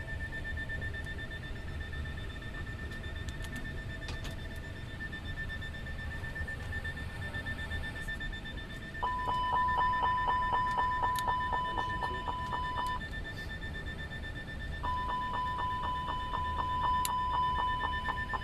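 Airbus A321 cockpit fire warning, the continuous repetitive chime: a rapidly pulsing bell-like tone at about five strokes a second, sounding twice for about four seconds each, about nine and fifteen seconds in. It is set off by the fire tests on the overhead panel. Under it runs a steady cockpit hum with a thin high whine.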